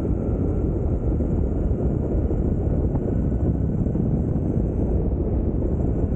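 Steady rush of wind and road noise from a belt-driven electric mountainboard rolling along asphalt at speed, with a faint steady whine.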